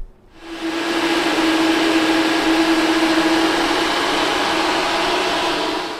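Electric cooling fans of an EV race car's radiators running: a steady whirring rush with a constant hum, coming up about half a second in and dying away near the end.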